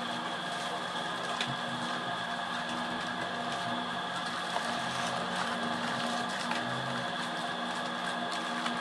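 Steady hum of a small electric motor holding several constant tones, with a few faint clicks and rustles of packaged goods being handled.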